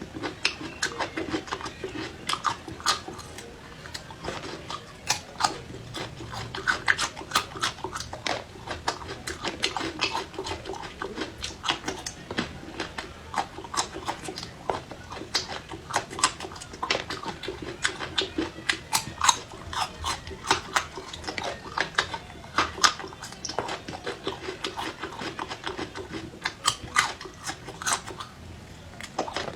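A person chewing and crunching food close to the microphone, with many quick, irregular wet mouth clicks and smacks.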